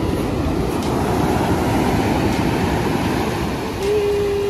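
Ocean surf breaking and washing up a coarse sand beach: a loud, steady wash of noise with wind buffeting the microphone. A brief steady tone sounds over it near the end.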